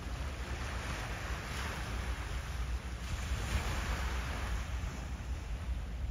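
Harbour water lapping and washing at the waterline, swelling twice, over a steady low rumble.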